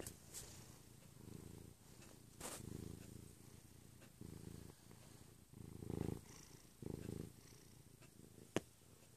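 Domestic cat purring close up, a deep motorboat-like rumble that swells and fades with each breath, about once every second or so. A short sharp click sounds near the end.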